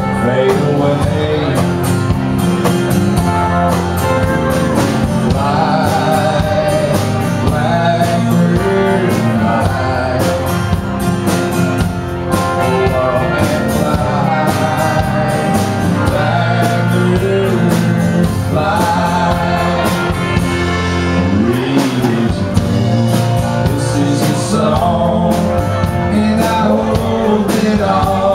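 Live country band playing loud and steady: a male lead voice singing over acoustic guitar, electric bass, electric guitar and drums.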